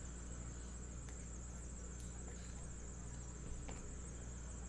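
Quiet room tone: a steady low electrical hum and a thin, steady high-pitched whine, with a few faint clicks from trading cards being handled.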